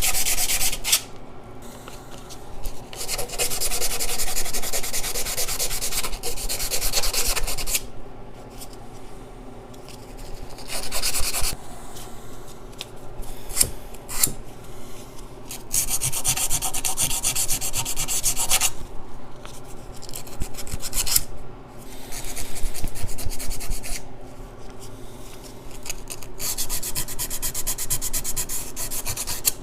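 220-grit sandpaper being rubbed on the exhaust-manifold-side flange of a 3S-GTE turbocharger to give it a smooth mating surface. It makes a scratchy, rasping hiss in spells of a few seconds with brief pauses between.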